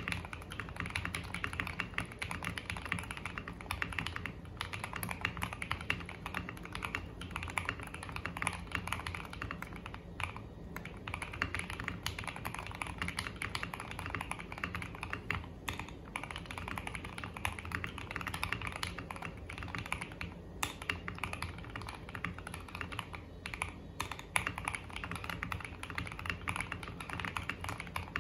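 Continuous fast typing on a mechanical keyboard fitted with FSA-profile PBT double-shot keycaps: a dense, steady stream of key clacks with a warm, deep tone typical of PBT keycaps.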